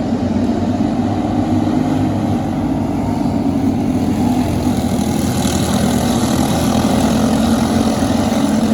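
Racing karts' Briggs & Stratton 206 single-cylinder four-stroke engines running steadily at race pace. The sound grows a little brighter about halfway through.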